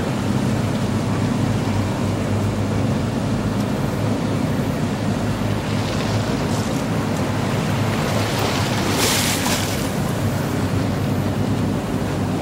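A boat engine running with a steady low hum, over the rush of wash and waves on the river. About nine seconds in comes a brief louder rush of spray.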